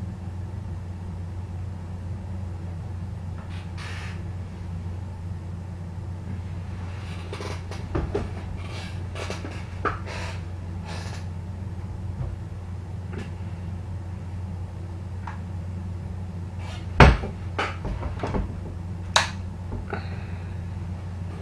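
Scattered scratches, clicks and a few sharp knocks of a wood mouse moving about inside a small wooden feeder box, the loudest knocks near the end. A steady low hum runs underneath.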